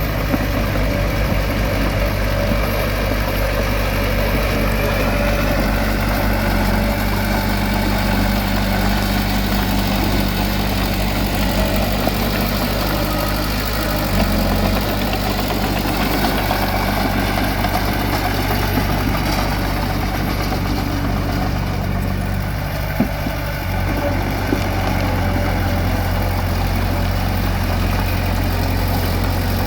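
A heavy machine's engine running steadily, with a low drone that shifts in pitch a little about halfway through and again near the end. There is one brief knock near the end.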